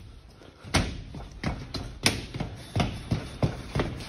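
A string of sharp knocks and clatters on a plastic slatted hen-shed floor, about eight in all, the first about three-quarters of a second in, then coming faster toward the end.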